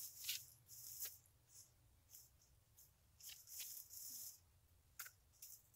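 Faint footsteps and rustling in dry fallen leaves: a few short, soft crunches spread through otherwise near silence.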